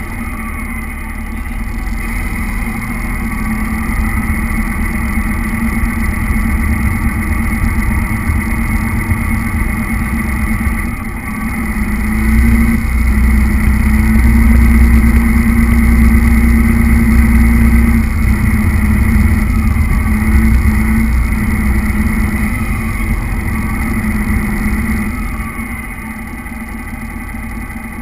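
Radio-controlled model truck running across a tiled floor, its drive whining and rumbling continuously with a pitch that rises and falls as the speed changes. It is loudest through the middle stretch and eases off near the end.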